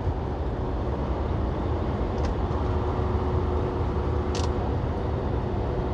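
Steady cab noise of a semi-truck driving on the highway: low engine drone and road rumble with a faint steady hum. There are two short ticks, one about two seconds in and one about four and a half seconds in.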